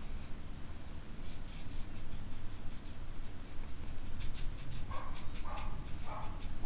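Paintbrush stroking acrylic paint across paper in quick scratchy strokes, about five a second, in two runs. Near the end come four short squeaky sounds about half a second apart.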